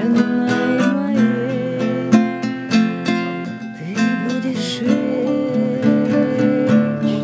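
Acoustic guitar strummed in a steady rhythm, with a long held melody note wavering over it.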